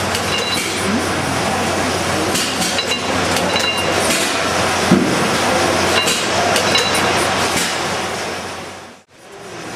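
Continuous mechanical clatter and clinking of running machinery, with a single thump about five seconds in, fading out about nine seconds in.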